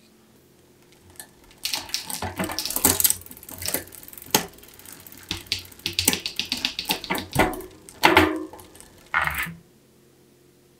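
Bicycle drivetrain turned by hand in a repair stand: the chain runs over the rear cassette and through the derailleur with rapid metallic clicking and clatter. It starts about a second and a half in and stops shortly before the end.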